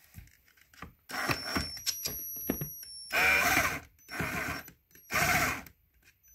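Cordless drill-driver driving screws in short bursts: a run with a high motor whine that shifts in pitch from about a second in, then two louder, shorter bursts.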